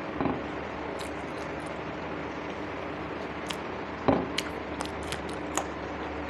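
Eating sounds: a few short clicks and mouth or handling noises over a steady background hiss, with two duller, louder knocks, one just after the start and one about four seconds in.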